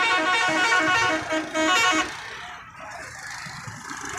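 A vehicle horn honking loudly in a quick string of short pitched notes, stopping about two seconds in; quieter street traffic noise follows.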